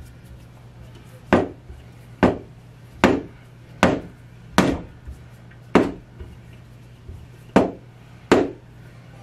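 Hand ratchet working in short strokes to tighten the bolts of a bolt-in sprag into an aluminium 727 transmission case, one sharp metallic click with a brief ring on each stroke, about eight in all with a short pause about two-thirds through. The bolts are being drawn in slowly by hand rather than with an impact or air ratchet, so their threads don't strip.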